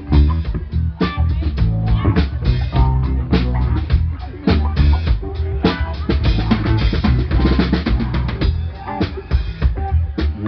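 Live rock band playing, the drum kit loudest with rapid kick and snare hits over bass guitar and electric guitar.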